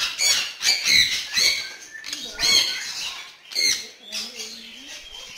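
Parrot squawking, about half a dozen loud, harsh screeches in quick succession, dying down after about four seconds.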